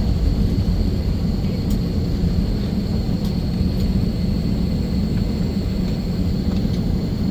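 Jet airliner engines heard from inside the passenger cabin as the plane heads onto the runway for takeoff: a steady low rumble with a thin high whine over it.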